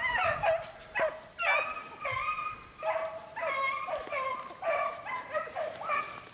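Field-trial beagles (15-inch males) baying as they run a scent line through brush. The short, pitched bays come about two a second, with some voices overlapping.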